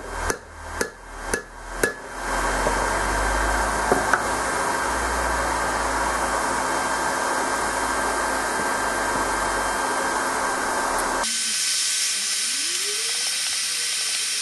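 A hand hammer striking a steel drift in the eye of a hot hammer head on the anvil: a few ringing blows about two a second, ending about two seconds in. A steady loud hiss follows, and its sound changes abruptly about eleven seconds in.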